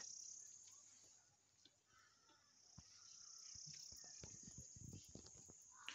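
Faint, steady, high-pitched chirring of insects such as crickets, with a few faint low thumps in the second half.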